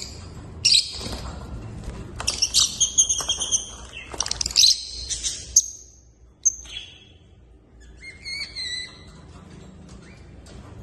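Pet African lovebirds and a baby cockatiel chirping: rapid, sharp, high-pitched calls in busy bursts for about six seconds. After a short lull, a single call is followed by another brief burst of chirps.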